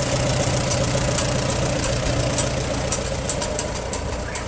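An engine idling steadily with a fast, even knock.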